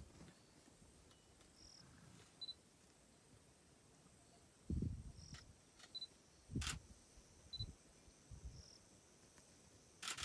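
Quiet outdoor ambience with faint, short high chirps every second or two, and a couple of dull low bumps and a click from the camera being handled about five and seven seconds in.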